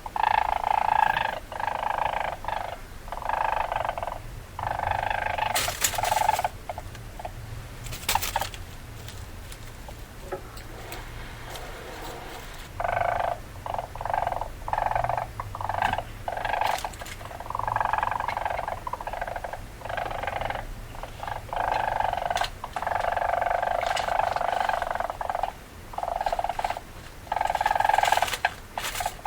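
Weasel chattering: rapid bursts of calls a second or two long, repeated with short gaps, with a quieter stretch about ten seconds in.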